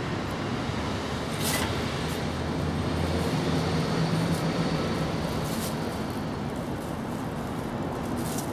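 Steady outdoor background noise with a low rumble that swells a little a few seconds in, and a few faint ticks.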